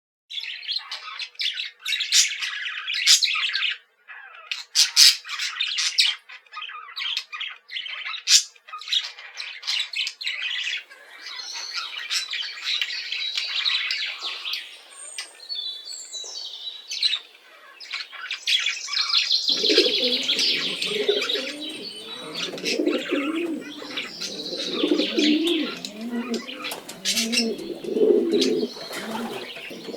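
A flock of parakeets and other small cage birds chirping and calling busily. About two-thirds of the way through, pigeons start cooing low under the chirping and keep on.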